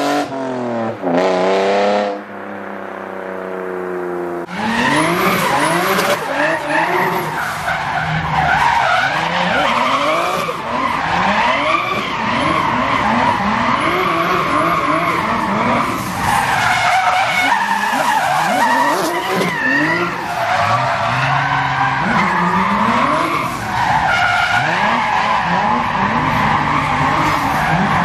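A straight-piped 1999 BMW E36 M3's straight-six revs and then pulls away, its note dropping and fading. About four and a half seconds in, it switches to a turbocharged BMW E36 M3 drift car revving hard up and down again and again while its tyres squeal and skid.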